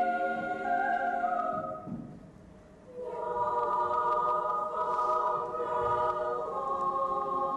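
Children's choir singing a held chord that fades out just under two seconds in, then, after a pause of about a second, coming back in on a new sustained chord.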